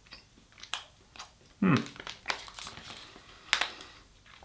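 Foil-lined plastic snack bag crinkling in the hands as it is held open and rummaged, in a few separate sharp rustles. About a second and a half in there is a louder short burst with a brief low falling murmur.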